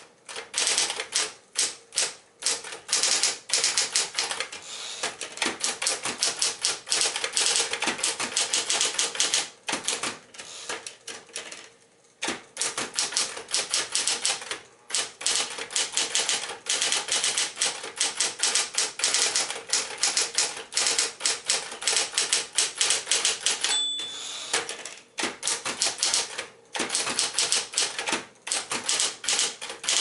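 Smith-Corona Electra 120 electric typewriter typed on at a fast, steady pace: rapid key and typebar strikes over its steady motor hum, with brief pauses. About three-quarters of the way in, a single short ring of the margin bell.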